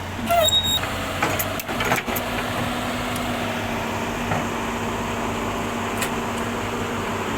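Komatsu excavator's diesel engine running steadily, with a few sharp metallic knocks and clicks in the first two seconds.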